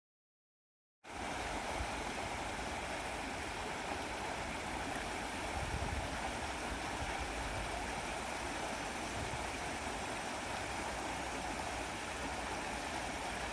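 Stream water flowing steadily over rocks, an even rushing that starts suddenly about a second in.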